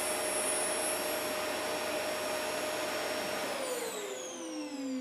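Motor-driven saw of a TSM PCB sample-sawing machine running steadily through an automatic cut, a smooth whir with a steady whine. About three and a half seconds in it switches off and spins down, the whine falling steadily in pitch as the cut finishes.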